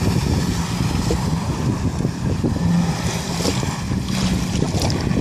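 Jet ski engine running at speed as the craft turns and comes closer, a steady hum under rushing water spray and wind buffeting the microphone.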